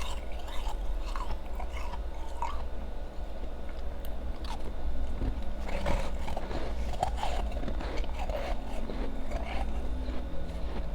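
Close-miked chewing and crunching of ice: bites into soft, powdery refrozen ice and harder ice cubes, with repeated crunches and wet chewing in the mouth.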